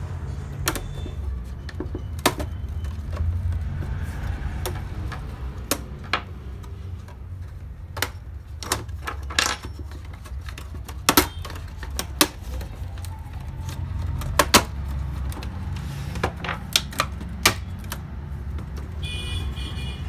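Plastic clips of a Dell XPS L501X laptop's trim and palmrest panel clicking and snapping as they are pried loose by hand, in irregular sharp clicks, over a steady low hum.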